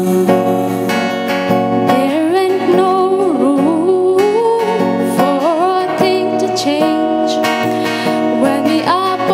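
Acoustic guitar playing chords while a singer's voice slides and wavers between held notes without clear words.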